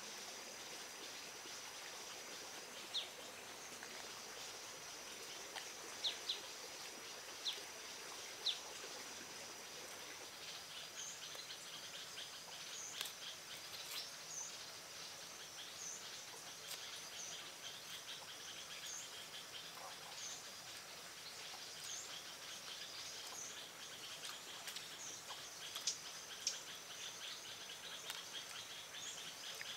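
Faint woodland ambience: insects keeping up a steady high-pitched drone, with a few sharp bird chirps in the first ten seconds and a short chirp repeating about once a second through the second half.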